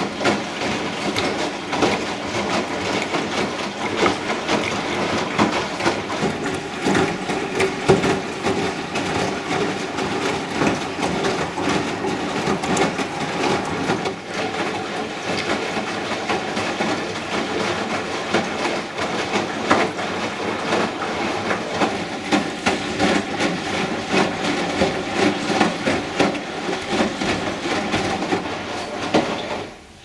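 AKAI front-loading washing machine tumbling a wet load: the drum turns with water sloshing against the door glass and a steady clatter, which drops away sharply near the end.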